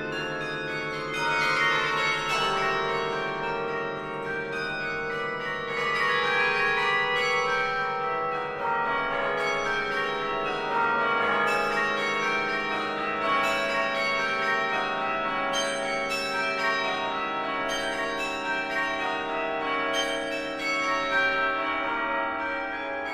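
Carillon bells playing rapid running figures of many quick notes, each bell ringing on into the next so the tones pile up, slowing down near the end.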